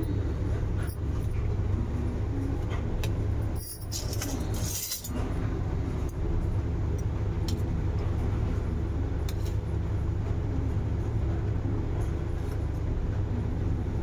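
A steady low rumble with a few light clinks of a steel spoon against a steel bowl as the khichdi is stirred and scooped.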